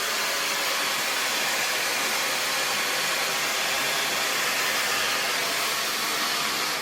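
Handheld hair dryer running steadily, its fan and airflow giving an even rushing noise as it blow-dries damp hair. It begins to die away at the very end as it is switched off.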